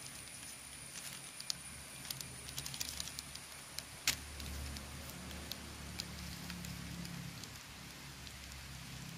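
Scattered small clicks and wet scrapes of a metal spoon scooping seeds out of a split, ripe cucumber, the sharpest click about four seconds in, over a low steady hum.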